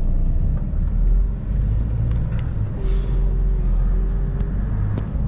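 Heavy truck's diesel engine rumbling low in the cab as the lorry pulls away, the engine note rising and easing a few times, with a few sharp clicks.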